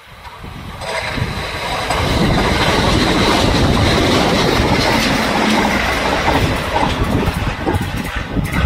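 Electric train passing close by: the noise of wheels on rail swells over the first two seconds, then holds as a steady loud rush, with a few sharp clicks from the wheels near the end.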